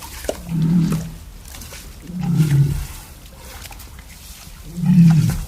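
Star Wars creature sound effect: three low growling grunts, each about half a second long, spaced about two seconds apart.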